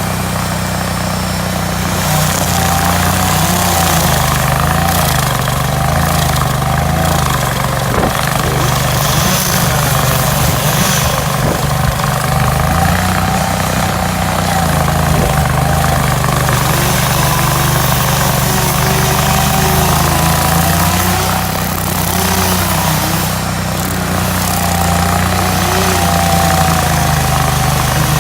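Hydraulic stump grinder running hard, its engine note shifting up and down repeatedly under the changing load, with a wavering higher whine over it and a few sharp knocks.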